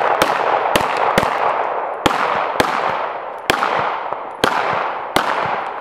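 Handgun fired in a rapid string: about eight sharp shots at uneven gaps of half a second to a second, each trailing off in a long echo.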